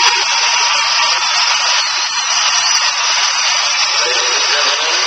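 Radio of a Nippon CX473F boombox giving a steady, loud hiss of static, as between stations.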